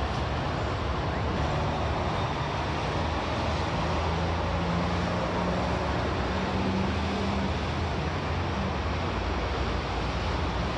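Steady outdoor murmur of a large crowd, with a faint low hum in the middle.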